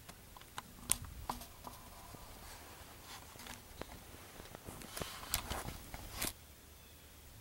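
Light rustling with scattered sharp clicks, the loudest cluster about five to six seconds in, stopping abruptly just after six seconds.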